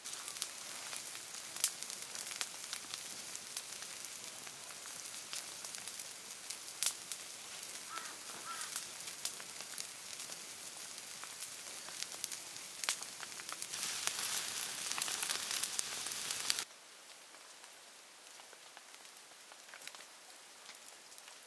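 Wood campfire crackling and hissing, with many sharp pops. It grows louder for a few seconds, then drops suddenly to a faint hiss about three quarters of the way through.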